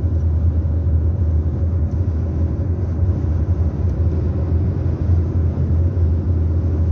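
Steady low rumble of a car driving at highway speed: engine and tyre road noise heard from inside the cabin.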